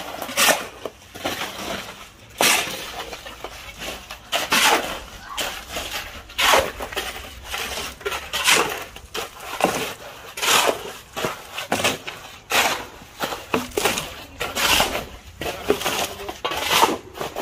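Steel shovels scraping and chopping through wet concrete mix and gravel on the ground, in repeated strokes roughly once a second.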